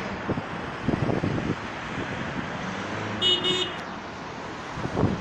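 Road traffic passing, with wind buffeting the microphone in gusts. A car horn gives one short toot about three seconds in.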